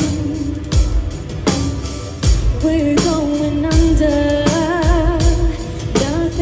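Live symphonic metal band performing: a female lead vocalist singing long, wavering held notes over drums, guitars and keyboards, with drum hits about every three-quarters of a second.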